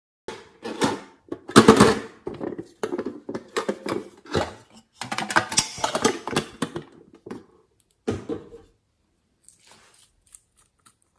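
Hands handling plastic toy containers on a tabletop: a busy run of clicks, taps and rattles, a short louder clatter about eight seconds in, then a few faint small clicks near the end.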